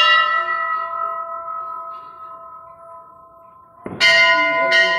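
Metal temple bell ringing out and slowly fading after a strike, then struck twice more near the end.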